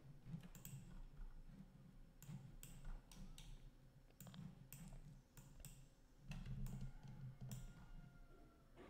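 Faint, scattered clicks of a computer mouse and keyboard, irregular and a second or less apart, over a low steady hum.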